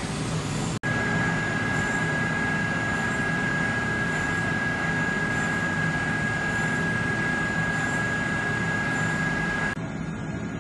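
DMG Mori CNC machining centre milling a stainless-steel part under flood coolant: a steady high whine over a rushing hiss, starting after a momentary break just under a second in. Near the end the whine stops and the sound thins out.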